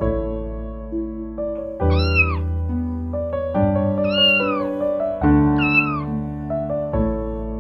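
A kitten meowing three times, about two seconds apart. Each meow is short and rises then falls in pitch, over background music.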